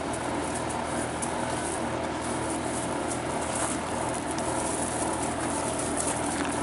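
Australian Shepherd puppies scuffling and wrestling on gravel: many small crunches and clicks, over a steady background hum.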